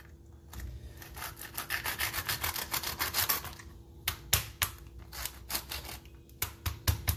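Serrated knife sawing through the hard shell of a raw lobster tail in rapid, rasping strokes. These stop after about three seconds, and a few scattered sharp clicks follow as the shell is handled.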